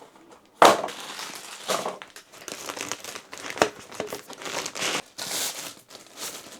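Plastic packaging crinkling and rustling in irregular bursts as the AIO cooler's radiator is handled and unwrapped from its box, with a sharp crackle about half a second in.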